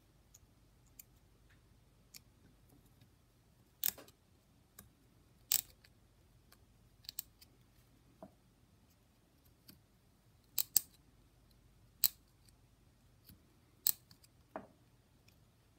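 A scalpel blade cutting and scraping at the plastic body of a Dallas DS1216 SmartWatch clock module: a dozen or so short, sharp clicks at irregular intervals as the blade bites and snaps through, with faint scraping between them.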